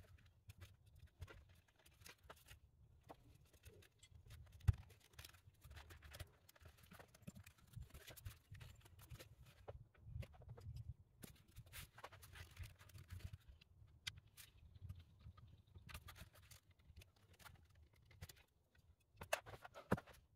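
Faint, irregular clicks and taps of plastic steering-wheel trim pieces being handled and pressed into place on the wheel, with one sharper click about five seconds in and a short run of louder clicks near the end.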